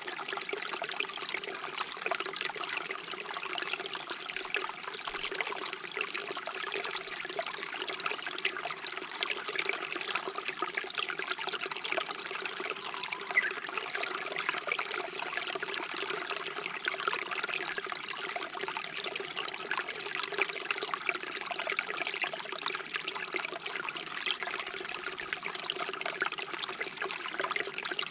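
A shallow stream flowing with a steady babbling trickle of water.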